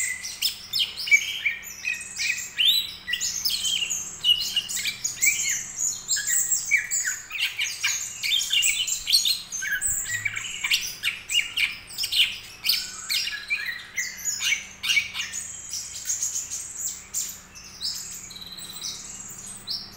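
A juvenile green leafbird (cucak ijo) singing a long, rambling run of varied quick chirps and short whistled notes, a young bird just beginning to practise its song.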